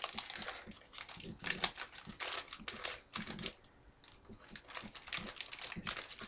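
Plastic packaging crinkling and crackling as it is handled and torn open by hand, in irregular bouts with a short lull about halfway through.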